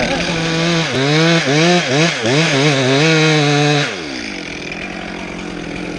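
Two-stroke chainsaw cutting wood, its engine pitch wavering up and down under load for about three seconds, then the throttle is let off about four seconds in and it drops back to idle.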